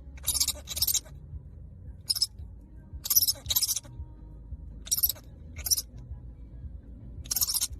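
A fruit bat giving short, high-pitched, bird-like chirps: about eight brief calls in clusters, some in quick pairs, over a faint low hum.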